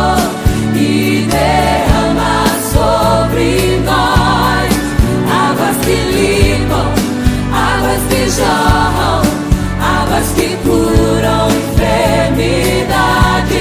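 Christian worship song: voices singing over a band with a steady drum beat and bass.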